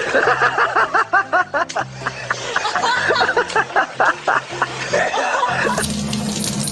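A person laughing in quick repeated bursts, about five a second, over background music. Near the end the laughter stops and a water tap starts running.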